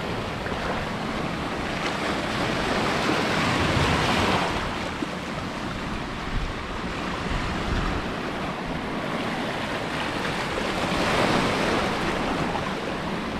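Small waves washing in over flat sandstone rocks and sand at the water's edge, a steady rushing wash that swells louder twice, about four seconds in and again near the end. Wind rumbles on the microphone underneath.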